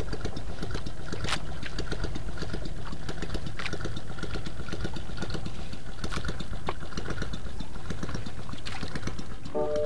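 Small boat engine idling with a steady, rapid chugging and a few faint clicks over it.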